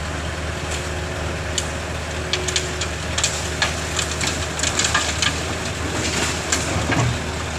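A heavy vehicle engine idling steadily, with a scattering of sharp cracks and crunches over it through the middle of the stretch.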